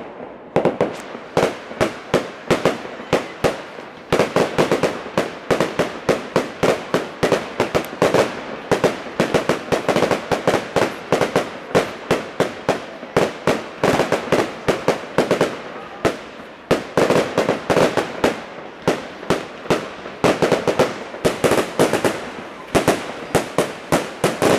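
Aerial fireworks display: a continuous barrage of sharp bangs and crackles from bursting shells, several reports a second.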